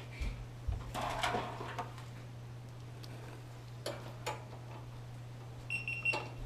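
Light clicks and rustling from hands handling computer parts, over a steady low hum, with a short high electronic beep near the end.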